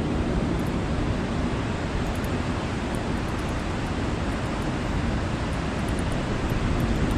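Ocean surf washing against shore rocks: a steady, even rushing noise with no distinct breaks.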